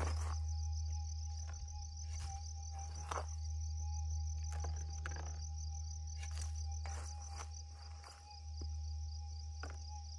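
Crickets chirring in rapid, even pulses over a metal detector's steady threshold tone and a low steady rumble, while a plastic scoop scrapes and scratches at loose soil in a dozen short strokes.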